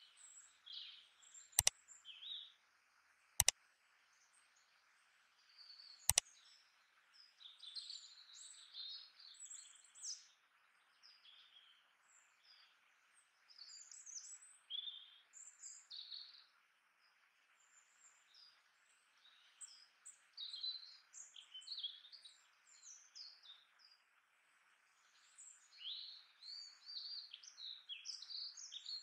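Small birds chirping and twittering over a faint steady hiss. Three sharp clicks sound in the first six seconds.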